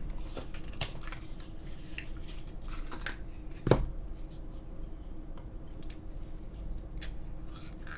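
Small clicks and scrapes of a drink carton and cup being handled and opened, with one louder knock about three and a half seconds in, over a faint steady hum.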